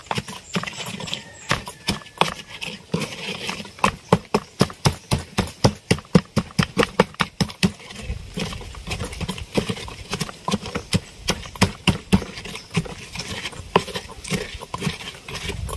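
Wooden pestle pounding red chilies in a wooden mortar: a steady run of knocks, about three a second.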